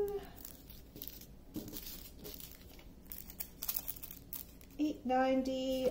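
Small plastic bags of diamond-painting drills crinkling in the hands as they are picked up and handled, in short irregular rustles.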